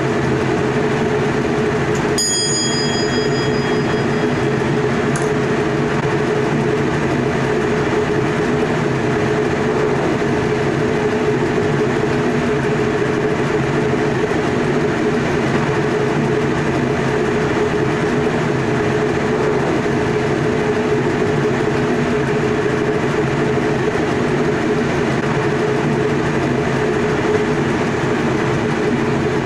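Electric passenger train running steadily at speed, heard from the driver's cab: continuous rumble of wheels on the rails with a steady low hum. About two seconds in, a single click with a short, fading bell-like ring.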